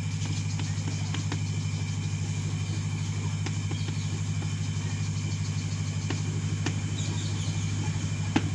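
A steady low mechanical hum with a fine, even pulse, the loudest sound throughout, with faint scattered ticks of chalk writing on a blackboard.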